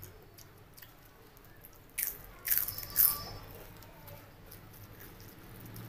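Crisp fried chips crunching three times in quick succession, loud and sharp, about two to three seconds in, with quiet chewing around them.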